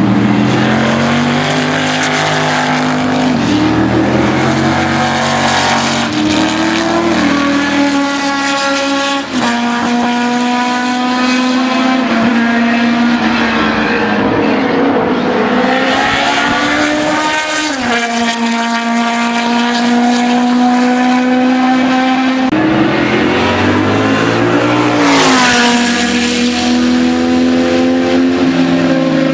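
Historic sports-prototype racing cars running hard on a circuit, several engines heard together. Their pitch climbs and drops in steps as the cars change gear and lift for corners.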